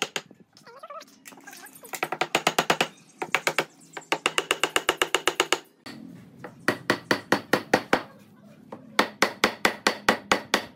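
A block of wood knocking branch legs down into a solid pine board: fast runs of sharp, ringing wooden knocks, several strikes a second, with short pauses between the runs.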